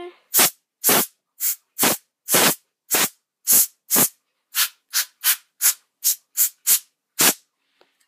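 Can of compressed-air duster fired through its straw into a laptop's cooling-fan vent in about sixteen short hissing blasts, roughly two a second, blowing out the dust that makes the fan whine.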